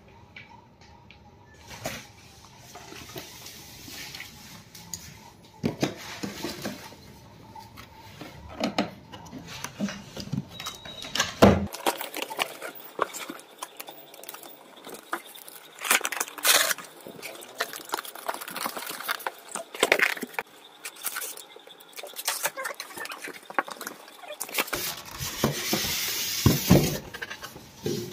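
A cardboard box and its polystyrene packing being handled and opened: irregular scrapes, knocks, clicks and rustles, with a longer stretch of rustling near the end.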